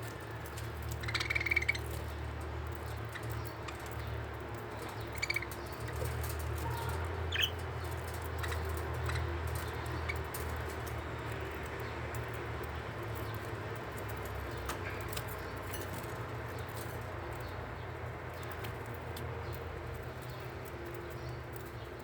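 Small ornamental cage birds giving a few short, scattered chirps, mostly in the first half, over a steady low hum.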